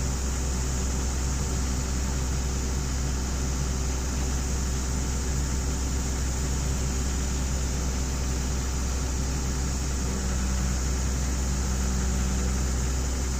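Excavator engine running steadily with a strong low hum; a slightly higher hum joins about ten seconds in.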